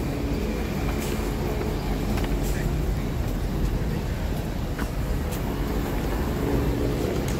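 Steady street traffic: car engines and tyres of passing and waiting vehicles, with a low engine hum under it.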